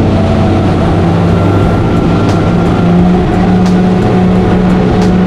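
Twin Yamaha 300 V6 outboard motors running at cruising speed, a loud steady drone with the rush of water from the wake beneath it.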